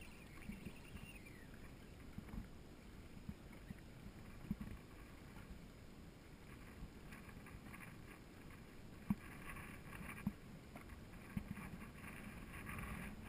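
Small waves lapping and slapping against the hull of a small fishing skiff, with scattered low knocks against the boat, the sharpest about nine seconds in.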